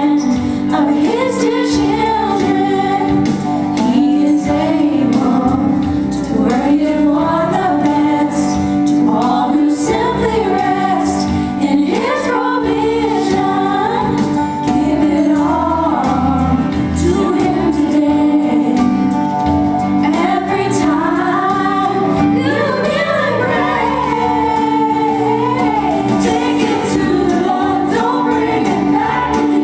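Three young women singing a gospel song together through microphones, over a steady instrumental accompaniment with long held notes.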